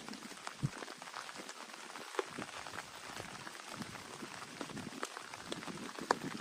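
Steady rain falling, with many separate drops ticking and a few louder drop hits scattered through.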